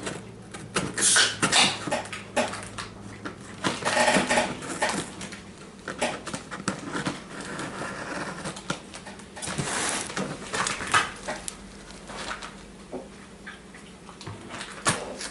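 Cardboard sneaker box being cut open with scissors and handled: irregular scrapes, rustles and knocks, loudest about a second and a half in, around four seconds in and around ten seconds in.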